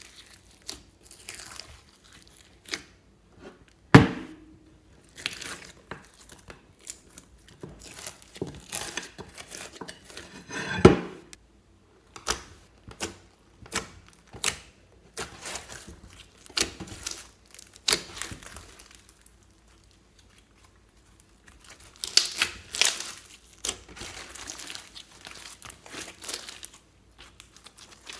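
Fluffy slime being squeezed and stretched by hand, giving irregular crackles and sticky pops. There are two sharper pops, about four and eleven seconds in, and a short pause about two-thirds of the way through.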